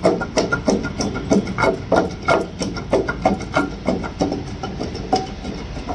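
Long wooden pestle pounding a wet paste of tamarind and green chillies in a deep stone mortar, about three dull strokes a second, a little softer near the end.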